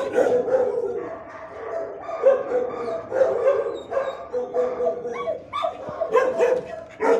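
Dogs in the kennels barking, many short barks and yips overlapping without a break.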